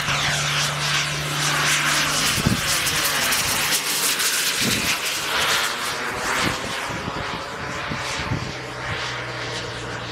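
Radio-controlled model jet flying past and away overhead: a loud, continuous rushing jet whoosh whose pitch falls as it goes by, with a low steady hum underneath.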